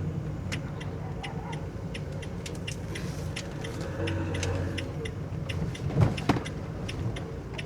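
Renault Trafic camper van driving slowly, heard from inside the cab: a steady low engine and road rumble with light clicks and rattles, and a short knock about six seconds in.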